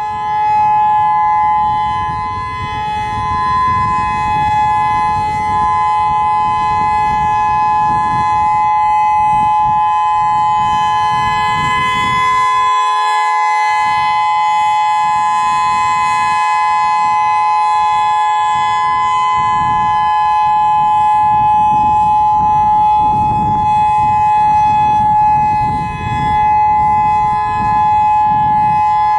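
Federal Signal EOWS 612 electronic tornado siren sounding its steady Alert signal: a loud, continuous chord of two notes held at a constant pitch, without rising or falling.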